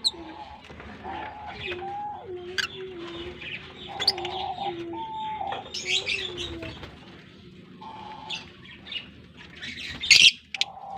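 A colony of African lovebirds chirping, with short sharp high calls scattered throughout and the loudest about ten seconds in, over a continuous low wavering cooing.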